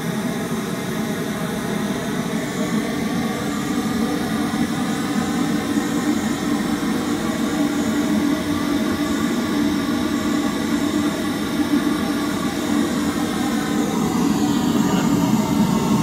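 Large outdoor sound system playing a steady test noise while it is tuned with an RTA: a loud, unchanging rush with no beat or melody, fullest in the low-mid range, with a few fixed tones running through it.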